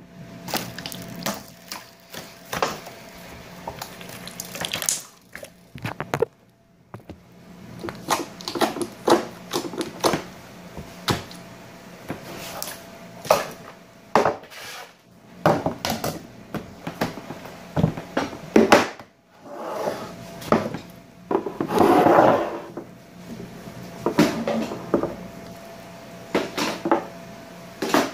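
Slime being squished and stretched by hand: irregular wet clicks and squelches, with a louder, longer squelch a little past the middle. A faint steady hum runs underneath.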